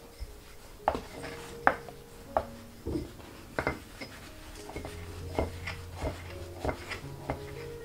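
Small wooden rolling pin rolled back and forth over a disc of bun dough on a wooden board, knocking and rubbing on the board in sharp, irregular clacks about every half second to a second.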